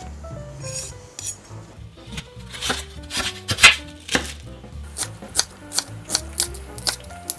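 Chef's knife cutting on a wooden cutting board: crunchy cuts through cabbage about halfway, then quick, evenly spaced strokes slicing green onion, each ending in a knock on the board. Light background music plays throughout.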